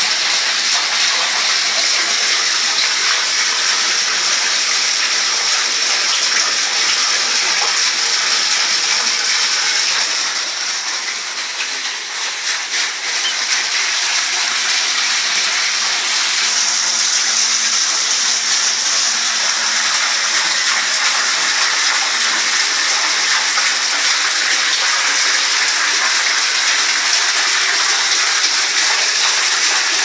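Water from a small decorative waterfall splashing steadily into a pond, dipping a little for a few seconds around the middle.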